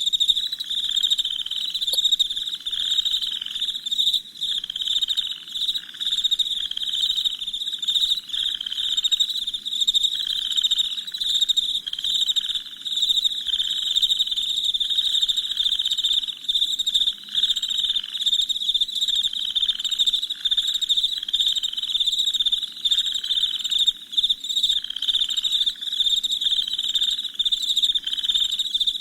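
Crickets chirping in a dense, continuous night chorus: high-pitched chirps repeating several times a second, over a fainter, lower-pitched pulsing call.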